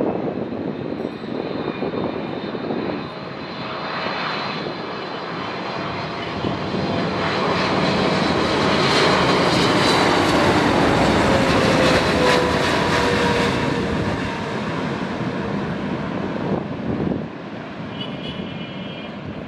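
Jet engines of a Kuwait Airways Boeing 777 on final approach as it passes low overhead: the sound swells to its loudest about eight to thirteen seconds in, with an engine whine falling in pitch as it goes by, then fades as the airliner descends to land.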